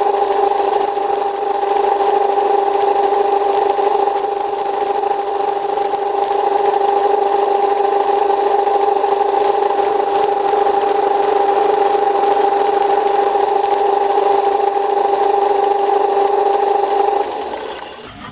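Metal lathe running with a steady whine, then switched off about a second before the end and spinning down.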